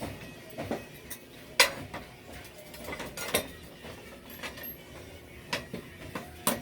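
Metal tools and parts clinking and knocking, several separate strikes, the sharpest about a second and a half in and another near three and a half seconds.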